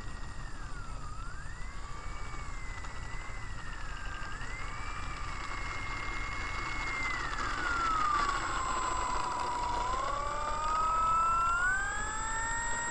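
Model P-40 airplane's motor and propeller whining, the pitch wandering with the throttle as it lands. The pitch drops about two-thirds of the way through as the power comes off, then climbs again near the end as the plane taxis on the track.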